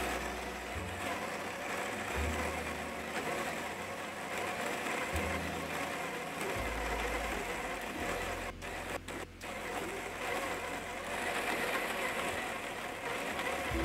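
The built-in conical burr grinder of a Breville Barista Express is running steadily, grinding espresso beans straight into the portafilter held in its cradle. It breaks off briefly a few times about two-thirds of the way through.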